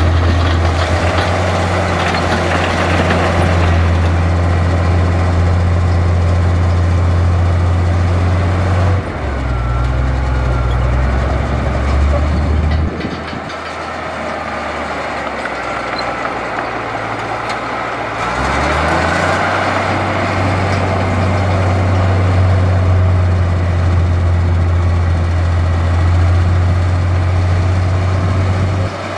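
Heavy diesel engine of construction machinery running. Its steady low note drops about nine seconds in, falls lower and quieter around thirteen seconds, then climbs back up near nineteen seconds.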